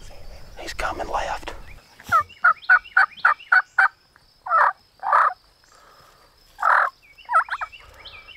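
Wild turkey yelping: a quick run of about seven yelps about two seconds in, then three longer, spaced-out calls and a short fast run of notes near the end.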